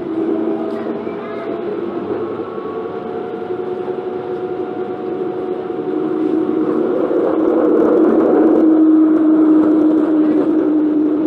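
MTR Ma On Shan Line IKK electric train heard from on board while running between stations. Several steady whining motor tones sit over the rumble of wheels on rail. The sound grows louder past the middle and eases slightly near the end.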